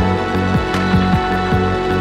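Background music with a steady electronic beat: deep drum hits falling in pitch, about four a second, over held bass and synth notes.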